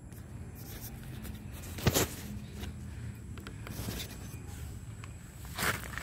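Two short, loud scratchy rustles, one about two seconds in and another near the end, over a low background rumble.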